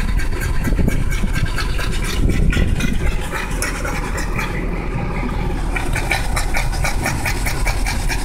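A dog panting rapidly, about four breaths a second, worn out from exertion, over the steady low rumble of the car's idling engine and air-conditioning.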